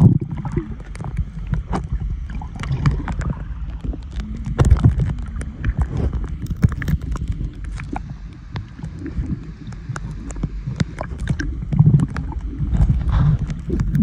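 Muffled underwater sound from a submerged camera: a low rumble of water moving around it, with many small clicks and crackles.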